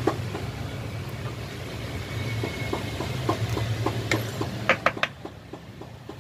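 Large kitchen knife cutting through a thick martabak manis and knocking on a plastic cutting board: scattered soft clicks, with a few sharper knocks about four to five seconds in. A steady low hum of street traffic runs underneath.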